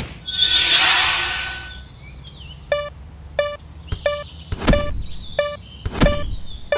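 A burst of hiss, then a level-crossing warning bell ringing in evenly spaced dings, about three every two seconds, with a few heavy thuds mixed in.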